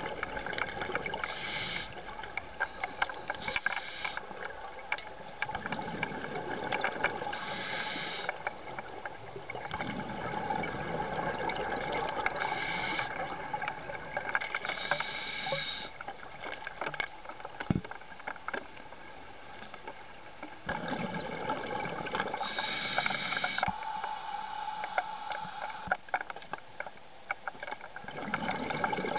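Open-circuit scuba regulator breathing underwater: a hissing inhale through the regulator, then a rush of exhaled bubbles with small crackling clicks, repeating every several seconds.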